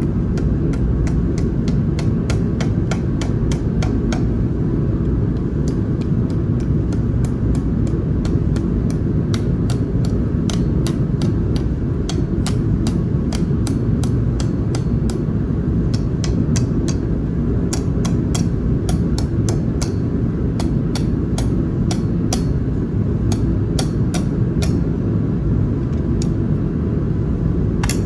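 Mechanical power hammer running, its motor and drive rumbling steadily while the dies strike the steel in rapid, regular blows several times a second.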